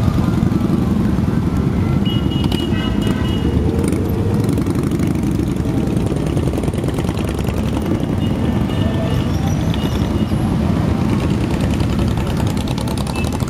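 A procession of many motorcycles and trikes passing slowly, their engines making a steady low rumble.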